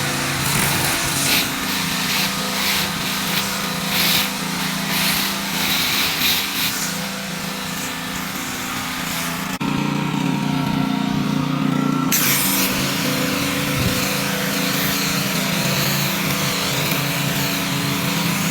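Pressure washer running, its engine humming steadily under the hiss of the wand spraying water onto the ground to blast off grime. About halfway through the spray cuts out for roughly two and a half seconds while the engine hum gets louder, then the spray starts again.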